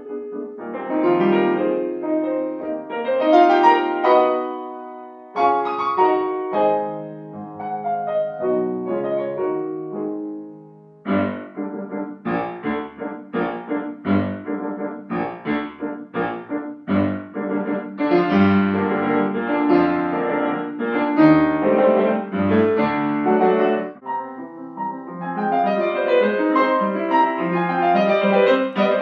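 Steinway concert grand piano played solo: a flowing melodic passage, a brief lull about ten seconds in, then separately struck chords building into fuller, denser playing.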